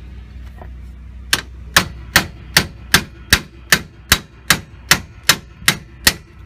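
A hammer striking a metal wedge being driven in at a VW T4 van's track rod end ball joint: about thirteen sharp metallic strikes, evenly spaced at a little over two a second, starting about a second in.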